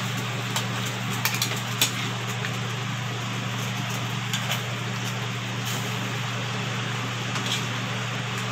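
A metal spoon scrapes and clinks against a wok and a bowl as cooked bottle gourd with pork is scooped out, several clicks in the first two seconds and a couple more later. Under it runs a steady low hum and hiss.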